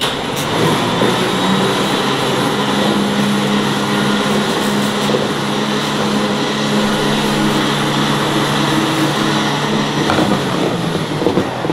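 A motor running steadily at constant speed: a low hum of several steady tones over a loud rushing noise, starting and stopping abruptly.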